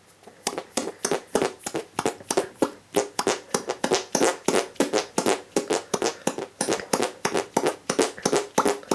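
Hand fart noises: two cupped hands clasped together and squeezed repeatedly, forcing trapped air out between them in a quick, steady run of short bursts, about four a second.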